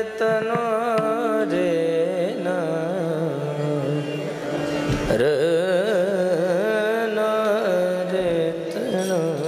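Indian devotional kirtan music: a wavering, ornamented melody, most likely a wordless sung alaap, over a steady held drone.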